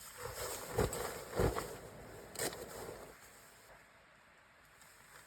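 Clothing and gear rustling and being handled, with three soft knocks in the first three seconds, then a faint steady hush.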